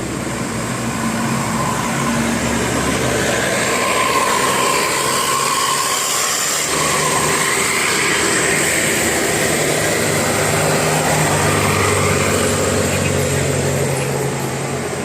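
Bus engine and road noise, a steady rumble that holds at one level throughout.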